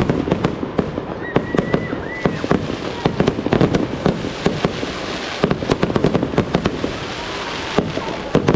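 Aerial fireworks display: a dense, rapid run of bangs and crackling reports, with a hissing crackle swelling in the middle.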